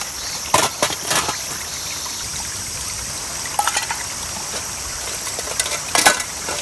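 A stream running steadily, with a few light metallic clinks and knocks as a metal military mess tin is opened and its inner tray lifted out.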